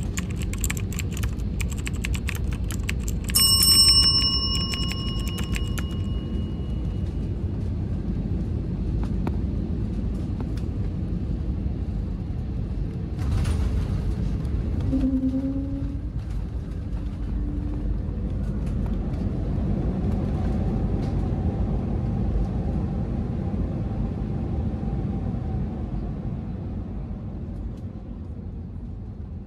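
Steady rumble inside the cabin of an Airbus A320neo airliner, with clicks and rattles at first and a single cabin chime ding about three and a half seconds in. There is one knock about thirteen seconds in.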